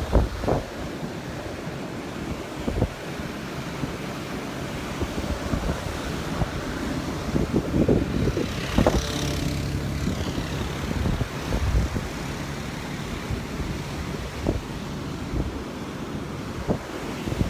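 Strong surf breaking on the beach with wind buffeting the microphone in gusts; an engine hum passes by about halfway through.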